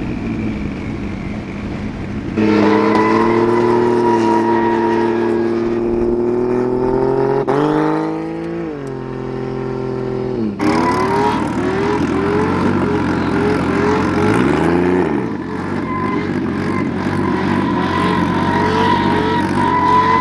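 Car engine heard from inside the cabin, held at steady revs, then the revs fall away about eight seconds in. A couple of seconds later the sound jumps louder and turns into a run of quick repeated rev rises, about one a second.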